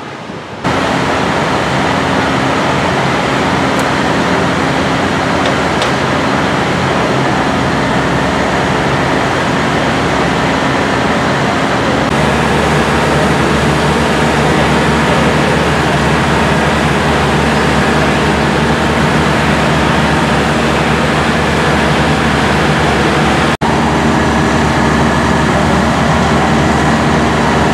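Antique fire engines running steadily at pumping speed while drafting water, their engine and pump drone mixed with the steady hiss of the water streams. The sound starts abruptly just under a second in, shifts slightly about twelve seconds in, and briefly drops out near the end.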